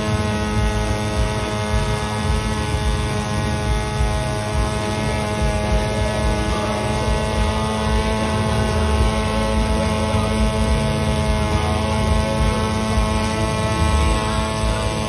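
A steady mechanical hum holding one constant pitch over a low rumble, as from a machine running at constant speed.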